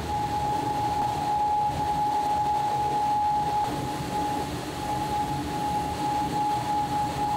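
Steady rushing noise of a ramen kitchen, with a constant high whine from running equipment and a lower hum joining about halfway, as tonkotsu broth gushes from a tilted steam kettle through a mesh strainer into a stockpot.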